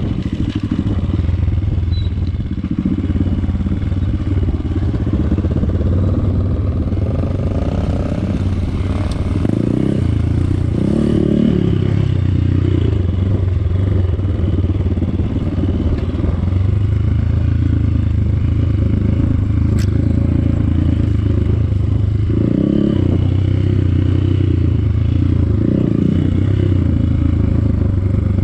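Off-road trail motorcycle engine running continuously while riding, its note rising and falling with the throttle a few times.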